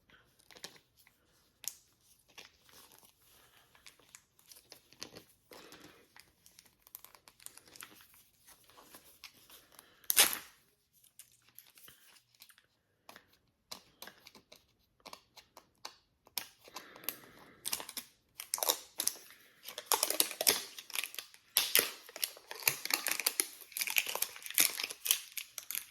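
Miniverse toy packaging being worked open by hand: scattered rustles and clicks, a single sharp snap about ten seconds in, then steady crinkling and tearing over the last several seconds.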